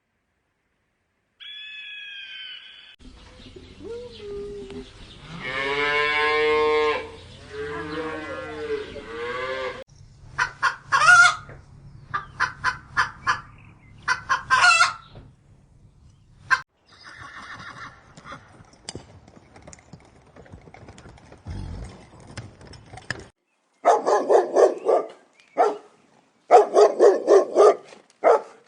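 Farm animal calls in a series of separate clips, chicken sounds among them: long calls with gliding pitch, then quick repeated calls, then louder repeated calls near the end.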